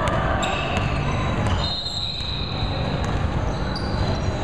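Basketball bouncing on a hardwood gym floor during play, with short high sneaker squeaks and running footsteps, echoing in a large gym.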